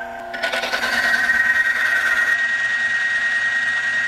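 A benchtop friction-testing machine runs a wear test. Its electric motor spins a metal wheel against a metal test cylinder lubricated with 10W-30 engine oil, giving a steady mechanical whir. About half a second in it grows louder with a rubbing, grinding noise, and a thin steady high tone joins it.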